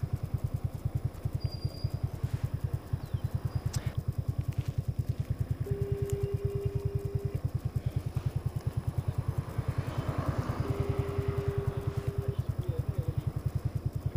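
Honda C50 single-cylinder four-stroke moped engine idling with a fast, even putter. A phone's ringback tone sounds twice over it, a steady mid-pitched tone of under two seconds each time, while the call waits to be answered.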